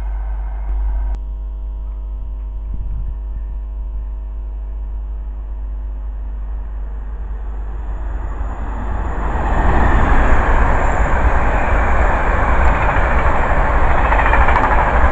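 InterCity 225 electric express train, a Class 91 locomotive with Mark 4 coaches, approaching and passing through at speed. A steady hum of several tones over the first half gives way, about nine seconds in, to a loud rising rush of wheels on rail that holds as the coaches go by.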